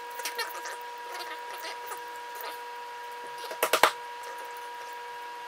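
Small metal lock-cylinder parts clicking and rattling as the plug and shell of a Corbin interchangeable-core cylinder are handled, with a quick cluster of sharp clicks about three and a half seconds in. A faint steady hum runs underneath.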